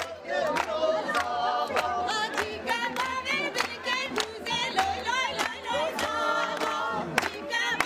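A crowd singing together with a steady rhythm of hand-clapping, about two to three claps a second.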